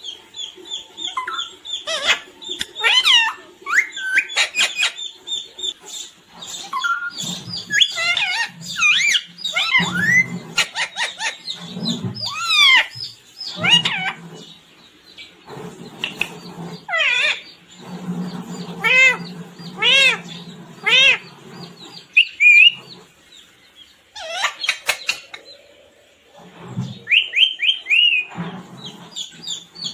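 Pet parrot calling: a busy run of short chirps, whistles and squawks that slide up and down in pitch, with brief pauses between bursts.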